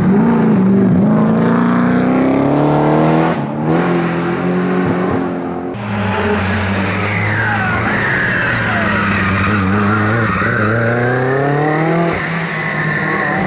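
Rally car engine revving hard in repeated rising sweeps, dropping briefly twice as it shifts gear, while its tyres squeal through a long sideways slide in the second half.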